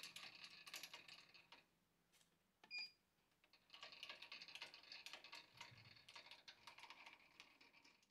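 Faint rapid clicking of a metal lathe's cross slide being wound by its handwheel, in two spells with a pause between. A short high beep sounds about three seconds in.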